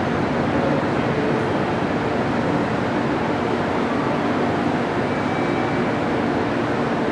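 Steady rumble and hum of a railway station platform, with electric trains running nearby.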